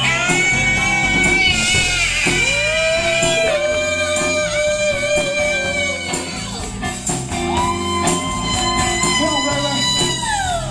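Live rock band playing: electric guitar and drums under several voices singing together, holding long notes. Near the end one sung note slides down in pitch.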